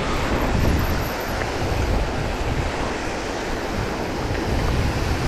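Wind buffeting the microphone with a low, flickering rumble, over a steady rushing noise.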